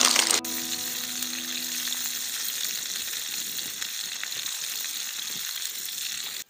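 Bacon-wrapped filet mignon steaks sizzling steadily as they fry in a steel skillet on a campfire grate.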